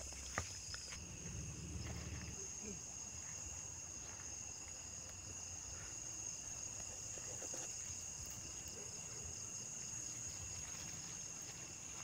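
Night insect chorus: several steady high-pitched trills at different pitches running together without a break. A few soft clicks and rustles in the first couple of seconds.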